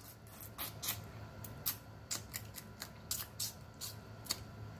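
Mouth sounds of eating boiled crawfish: short, irregular smacking and sucking clicks, more than a dozen, as meat and seasoning are sucked from the shells and fingers.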